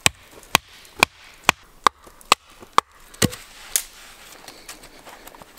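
Fixed-blade knife chopping and batoning into wood: a run of sharp wooden knocks, about two a second, that stop a little over three seconds in, followed by a few lighter knocks.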